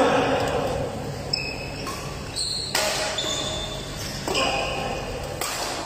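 Badminton rally: racket strings hitting a shuttlecock several times, sharp cracks that echo in a large hall, with short squeaks of court shoes on the synthetic floor between shots.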